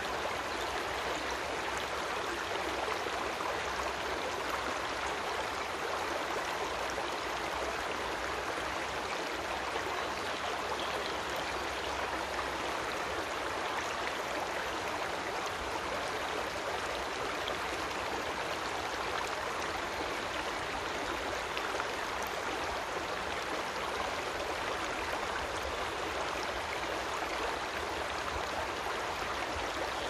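A creek running: steady, unbroken rushing of flowing water.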